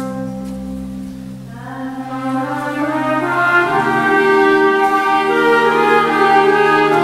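Church organ playing slow, held chords. It softens about a second and a half in, then a new chord comes in and grows louder.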